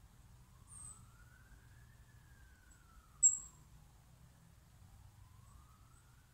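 Faint siren wailing slowly up and down in pitch, rising and falling over a few seconds each way. Two short, very high chirps sound over it, about one second and three seconds in; the second is the loudest sound.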